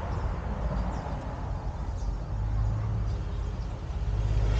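Low, steady rumble of a motor vehicle's engine, with a low hum that grows louder near the end.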